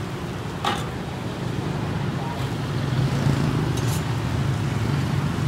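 Bánh xèo batter sizzling in large woks over wood fires, a steady hiss, under a low rumble that grows louder about three seconds in. Two short sharp clicks, about a second in and near four seconds.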